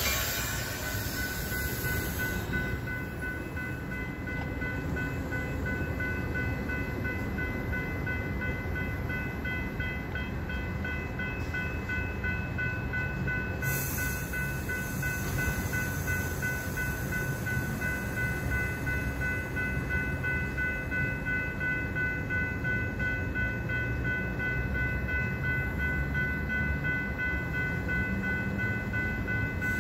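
Diesel commuter-train locomotive running steadily: a low rumble with a steady high-pitched whine of several tones over it.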